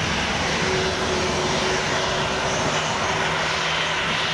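Airliner engines running with a steady, even rush of noise and a faint held hum underneath.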